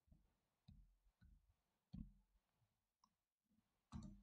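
Faint computer keyboard keystrokes: a handful of soft, irregularly spaced clicks as a short word is typed, a little louder near the end.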